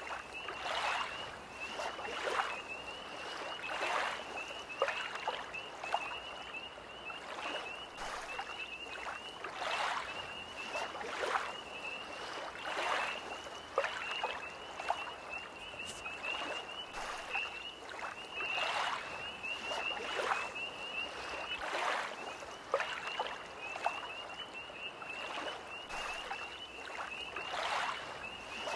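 Small lake waves lapping against the shore every second or two, under a steady high-pitched trilling chorus of tree frogs.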